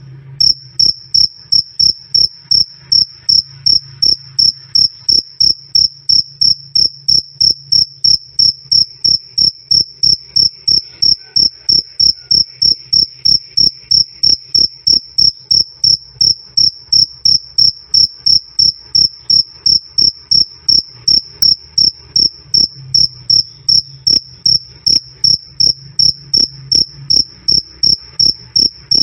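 A cricket chirping "krik krik" in a steady, even rhythm, about two to three loud, clear chirps a second, each on the same high pure note.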